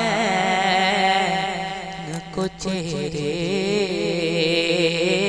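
Devotional naat singing: a voice holds long, wavering, ornamented notes over a steady low drone.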